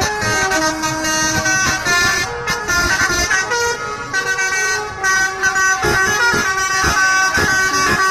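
Indonesian bus telolet horns, multi-note air horns playing quick stepped tunes. Several buses' horns overlap and answer one another without a break.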